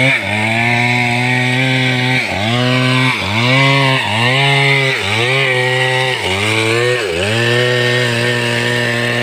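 Stihl MS 382 two-stroke chainsaw running at high revs as it cuts through a log, its engine note dipping briefly and picking back up about six times under the load of the cut.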